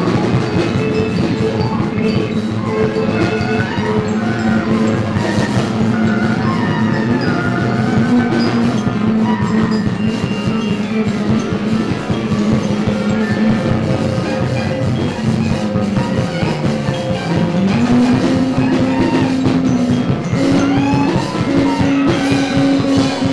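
Live experimental ensemble music: about a dozen musicians layer dense, rapid pulsing notes into a loud, steady cacophony over a sustained low note. The low note slides down and back up about two-thirds of the way through. Keyboards, drum kit and upright bass are among the instruments.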